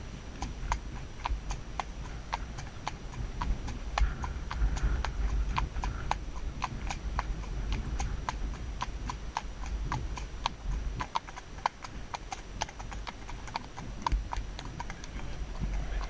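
A horse's shod hooves clip-clopping on a tarmac road in an even rhythm, about three hoof strikes a second, over a low rumble.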